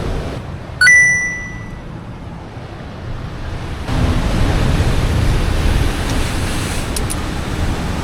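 A single sharp metallic ding about a second in, ringing clearly for about a second. From about four seconds in comes a steady rush of wind and surf noise.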